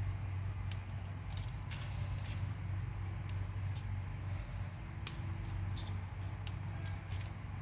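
Whole spices being dry-roasted and stirred on a tawa, giving scattered light clicks and rattles at uneven intervals, over a steady low hum.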